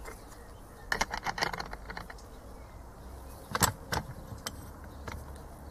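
Small steel parts clinking as a nut is fitted onto a Delphi diesel injector clamped in a vise: a quick run of clinks about a second in, then two sharper clicks past halfway.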